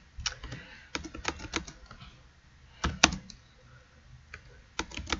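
Computer keyboard being typed on in short irregular runs of keystrokes, with a brief lull in the middle and a couple of louder key presses about three seconds in.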